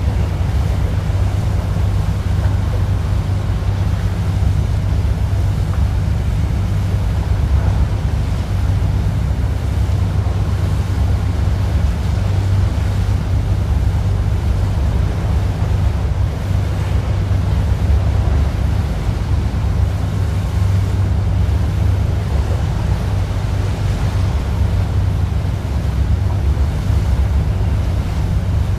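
A boat under way: a steady, low engine rumble mixed with water washing past the hull and wind buffeting the microphone.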